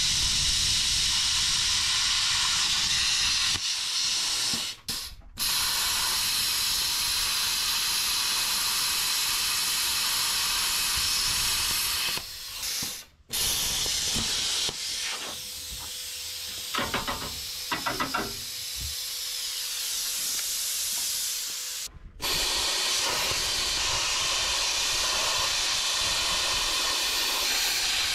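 Hypertherm handheld plasma cutter slicing through the steel trailer tongue: a steady, loud hiss of arc and air. It breaks off briefly about five seconds in, again near the middle and about three-quarters through as the trigger is let go and pulled again, with a quieter stretch in the middle.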